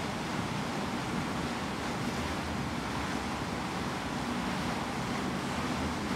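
Steady on-board ship noise: a low machinery hum under an even rushing hiss, unchanging throughout.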